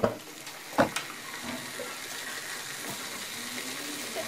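Coated chicken wings deep-frying in hot oil in an aluminium pot: a steady sizzle and bubbling, with two sharp clicks in the first second.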